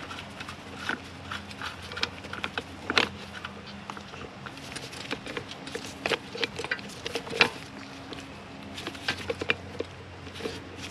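Scattered light clicks and knocks of metal strut parts being handled during strut assembly, at an irregular pace with a few louder knocks, over a steady low hum.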